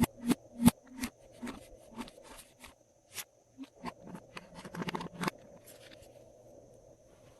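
Glossy slime being mixed and squished, giving a string of sticky clicks and pops that come thickest just before they stop about five seconds in.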